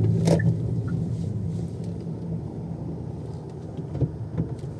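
A car's engine and road noise heard from inside the cabin: a steady low hum that slowly dies down, with a sharp click just after the start and a few light clicks near the end.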